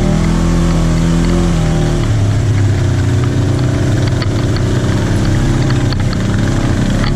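Polaris RZR 900S side-by-side's twin-cylinder engine running steadily at trail speed. Its note drops to lower revs about two seconds in.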